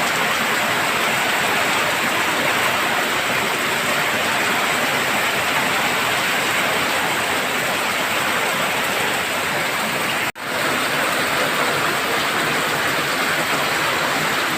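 Rain falling steadily, a dense, even hiss. It cuts out for an instant about ten seconds in.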